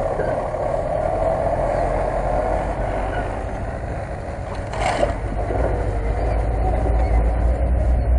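Off-road vehicle engines running, a GAZ-66 truck's and a Lada Niva's, with a deep low rumble that grows louder in the second half and a short knock about five seconds in.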